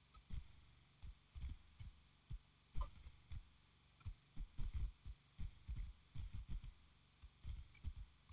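Wind buffeting an outdoor camera's microphone: irregular low thumps and rumbles, several a second, over a faint steady hiss.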